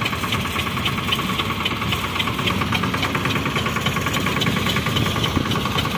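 Field Marshal mini tractor's diesel engine running steadily, with a rapid, even clatter.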